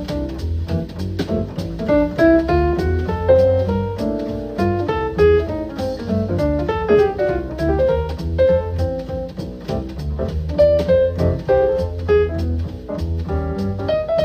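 Instrumental jazz with double bass and a melody line played back through a Bugani brief pro portable speaker.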